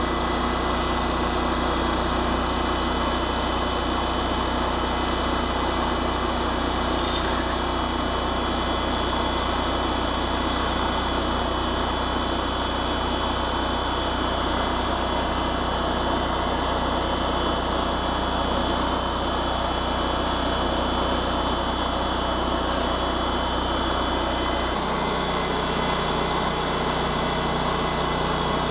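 Engine running steadily. About 25 seconds in, its low tone changes abruptly to a different pitch.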